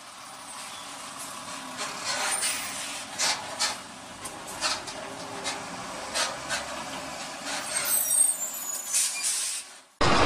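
Slow road traffic beside container trucks heard through a dashcam: a steady hiss of traffic noise broken by repeated short, sharp sounds and a brief high squeal about eight seconds in.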